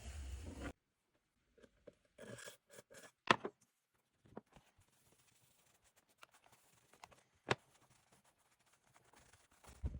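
Intermittent small handling noises from work on a leather baseball glove: short scrapes and rustles with two sharp clicks, the loudest about a third of the way in and another about three quarters in. A steady hiss at the start cuts off abruptly under a second in.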